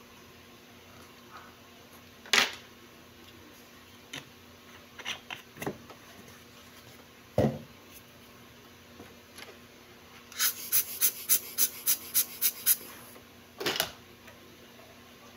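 Knocks and clicks of a metal wristwatch and its link bracelet being handled and set down on a wooden table, with a quick run of about a dozen sharp clicks, about five a second, two-thirds of the way in.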